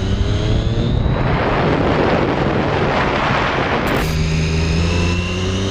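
Triumph Daytona 675R's inline three-cylinder engine pulling, its pitch rising. From about a second in, a loud rushing noise covers it for about three seconds and cuts off suddenly. After that the engine is heard again, rising steadily in pitch as the bike accelerates.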